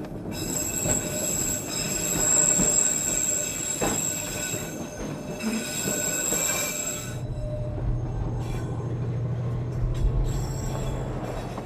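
Train wheels squealing on a curve, several steady high-pitched screeching tones at once. About seven seconds in the squeal mostly fades and a low steady drone is left.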